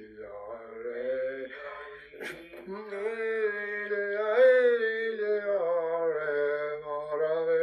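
A man's voice singing unaccompanied, in slow, long held notes.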